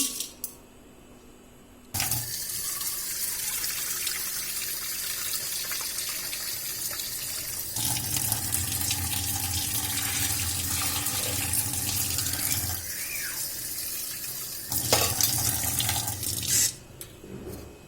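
Kitchen tap running water into a vessel, starting about two seconds in and stopping near the end. This is the water being measured out for a pressure cooker of potatoes and chickpeas.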